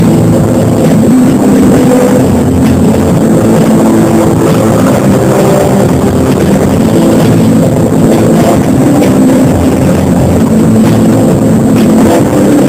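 Live band playing, with a woman singing and an electric guitar over drums, very loud and dense with hardly any change in level.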